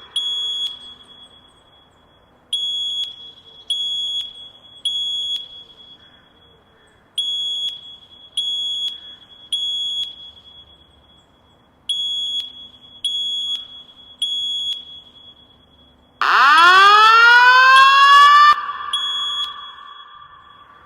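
Fire alarm sounding a high-pitched beep in groups of three, each beep ringing out briefly, with a pause after each group. About 16 seconds in, a much louder rising whoop tone lasting about two seconds joins the beeps. This is the evacuation signal that alternates with the recorded voice message.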